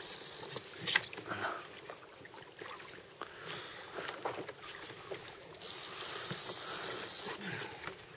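Water and handling noise around a kayak on the sea, with scattered knocks and a sharp click about a second in. A loud hiss starts about five and a half seconds in and lasts nearly two seconds.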